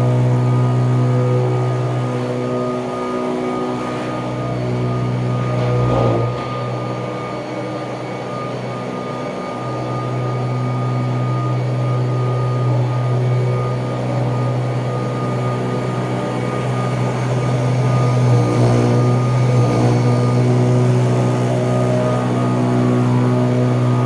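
1979 Kirby Tradition upright vacuum cleaner running steadily as it is pushed back and forth over carpet, its motor hum rising and falling slightly in level; a brief knock about six seconds in.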